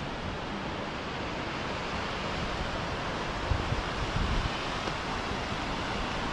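Steady rush of a mountain creek tumbling over cascades, with wind briefly buffeting the microphone in the middle.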